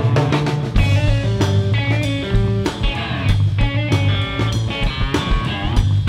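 Live instrumental blues-rock: an electric guitar plays a lead line with gliding, bent notes over bass guitar and a drum kit.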